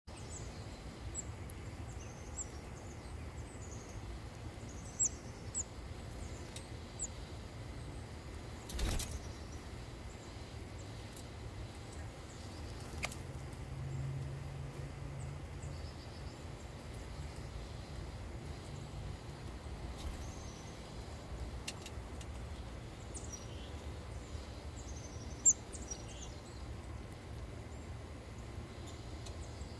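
Outdoor yard ambience of small birds giving short, high chirps scattered throughout, over a steady low rumble. There are a few brief clicks, and the loudest is a single sharp click about 25 seconds in.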